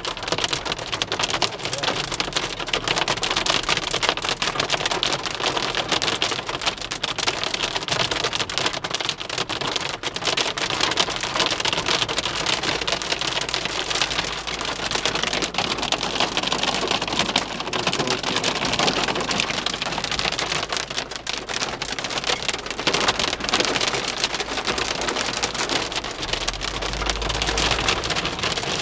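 Hailstones and heavy rain drumming on a car's roof and windscreen, heard from inside the cabin as a dense, steady clatter of tiny impacts. A low rumble swells near the end.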